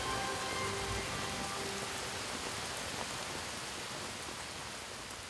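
Steady rain falling on grapevine foliage, an even hiss that slowly fades. A few soft, held music notes sound under it in roughly the first second and a half.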